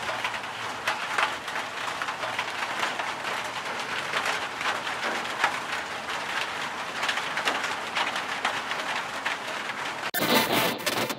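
Electronic music opening on a dense, crackling noise texture that sounds like heavy rain. About ten seconds in it cuts off sharply and a brighter, busier section of the track begins.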